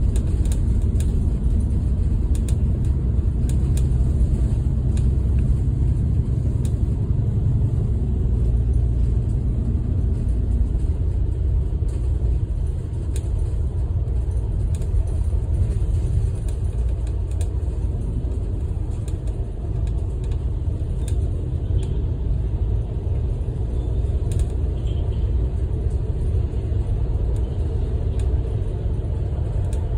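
Steady low rumble of a double-decker bus cruising at highway speed, heard from inside on the upper deck: engine and tyre noise, a little heavier in the first twelve seconds, with faint scattered ticks and rattles.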